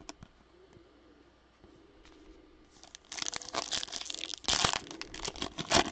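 Foil wrapper of a Topps Chrome trading card pack crinkling and tearing as it is ripped open by hand. It starts about halfway in, with two louder rips near the end.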